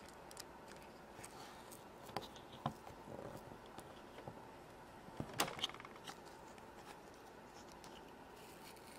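Faint handling sounds of a plastic toy mold and Moon Dough: soft rustles and scattered light clicks as a plunger presses the dough into a small triangular mold and the shaped piece is worked out, with a few sharper clicks about two seconds in and around five seconds in.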